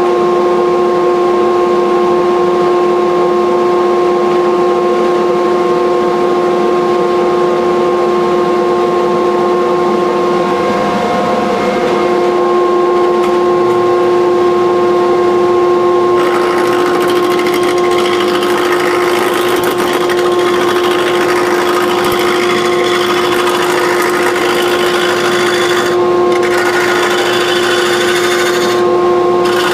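Wood lathe running with a steady motor hum while a gouge turns a wooden knife-handle blank. About halfway through the shaving noise of the cut grows louder, and it breaks off briefly twice near the end.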